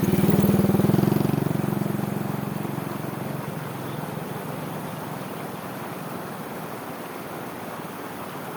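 A motor vehicle engine passes close by, loudest about a second in and fading over the next few seconds, over the steady rush of irrigation-channel water.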